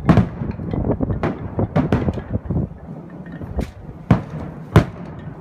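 Aerial firework shells bursting overhead: a string of sharp bangs at irregular intervals, about eight in all, with rumbling between them.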